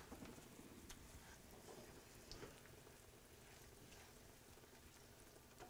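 Near silence: a cream sauce simmering faintly in a small pan while a spoon stirs it, with a few light clicks of the spoon against the pan.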